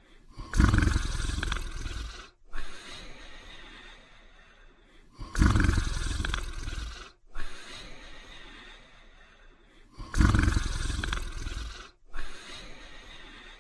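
A sleeping dog snoring loudly in a slow rhythm: three long, rough snores about five seconds apart, each followed by a shorter, fainter breath.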